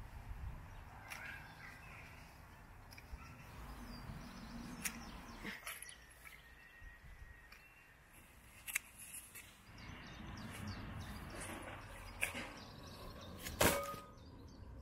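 Outdoor garden sound: a low rumble of wind on the microphone with scattered clicks and rustles as plant stems are cut with scissors and handled, the sharpest click near the end, and a few faint bird chirps.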